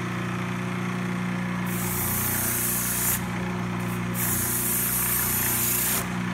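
Drum sander running with a steady hum while a rubber abrasive-cleaning stick is pressed against the spinning sandpaper drum twice, each time giving a loud hissing scrape of a second or two. The stick is clearing loose buildup from the sandpaper.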